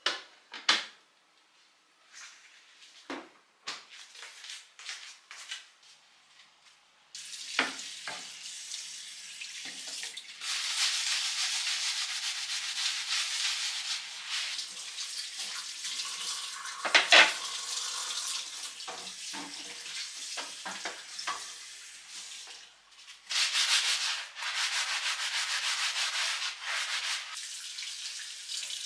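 Scattered knocks and clicks of containers being handled, then a kitchen tap running into a stainless steel sink in two long spells, with a sharp knock midway.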